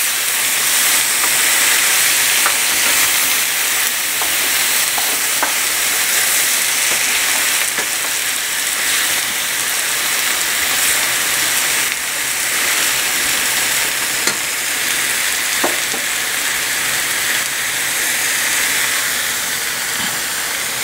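Pre-cooked chicken pieces sizzling steadily in a frying pan as they heat through with taco seasoning, with a few faint clicks.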